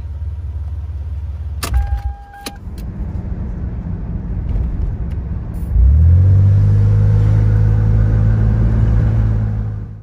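Toyota 4Runner's 3.4-litre V6 idling. Near two seconds in there is a click and a brief tone as the key is turned and the engine shuts off. About six seconds in the engine starts again and settles into a loud, steady idle, restarted to reset the disabled traction control and VSC.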